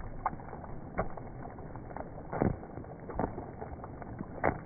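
Rain falling on a river and small waves lapping right at the camera, heard as a dull rushing with irregular splashes, the strongest about two and a half seconds in and again near the end.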